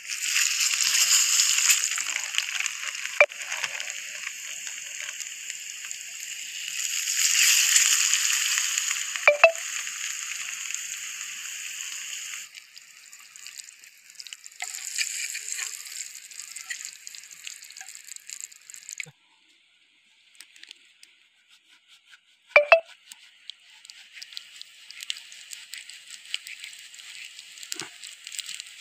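Paneer cubes frying in hot oil in a pan on a portable gas camping stove: a sudden loud sizzle as they are dropped in, a second surge about seven to nine seconds in, then a lighter crackle that nearly stops around twenty seconds in. A few sharp clinks of a steel spoon against the pan stand out, the loudest about twenty-three seconds in.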